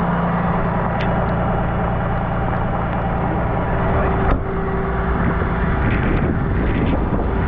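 Tow truck engine idling with a steady hum under a constant rushing noise of rain, with two sharp clicks, one about a second in and one about four seconds in.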